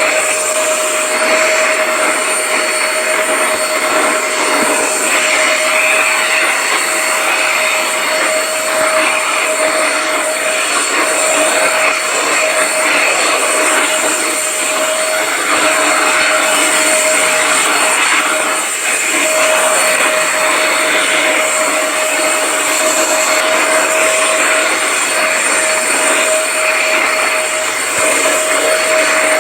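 Electric vacuum cleaner running steadily: a loud, even rush of air with a constant motor whine.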